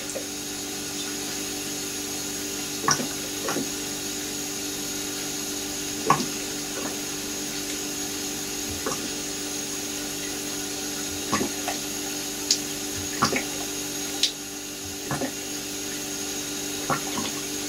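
ISO 32 hydraulic oil pouring steadily from a plastic jug into a large funnel, filling a lathe headstock: a continuous trickle with scattered small sharp knocks, over a steady low hum.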